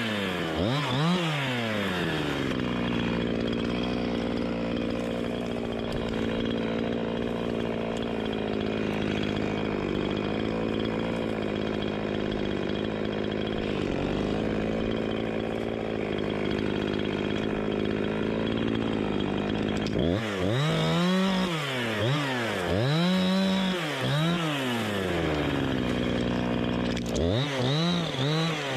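Gas chainsaw revving up and down, then held at a steady high speed for a long stretch, then revved up and down several times in quick succession near the end.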